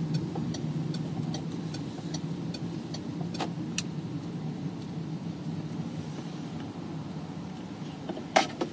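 Vehicle engine running slowly with a steady low hum. Light regular ticks sound over the first three seconds, with a sharp click about three and a half seconds in and a louder knock near the end.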